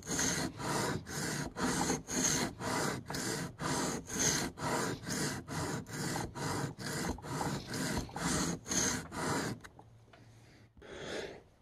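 M4 steel blade of a Spyderco PM2 Tanto stroked back and forth on a wet diamond sharpening plate: a steady, rhythmic rasping scrape at about two strokes a second. The strokes stop a little before ten seconds in.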